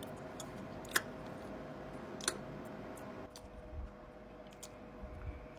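A few faint, sharp clicks, the clearest about one second and about two seconds in, over a quiet steady hum.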